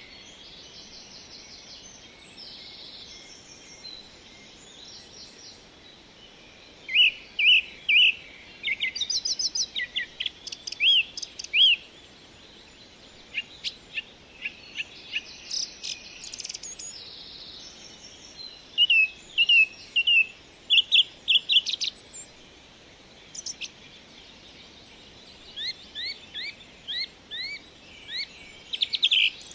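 Songbirds chirping in several bursts of quick, repeated high notes, a few seconds apart, over a faint steady hiss.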